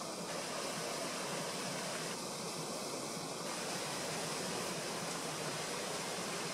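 Steady, even rush of flowing stream water, with no distinct events.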